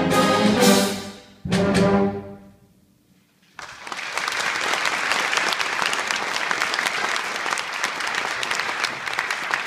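A school concert band plays its closing brass chords and ends on a last loud chord about a second and a half in, which rings away into a moment of silence. Audience applause breaks out about three and a half seconds in and carries on.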